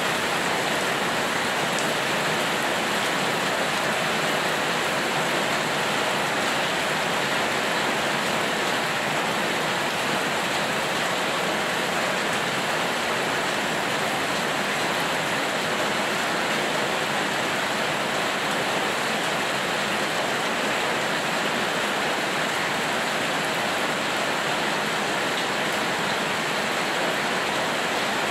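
Steady heavy rain falling, a constant even hiss with no separate drops or breaks.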